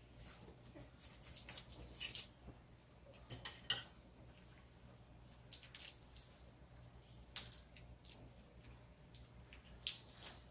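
A few faint, scattered clinks of a metal fork against a ceramic dinner plate, over a low steady hum.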